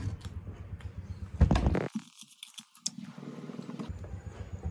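Close-miked eating sounds: chewing and the tearing of chicken with the fingers, with small wet clicks. There is one loud burst about a second and a half in.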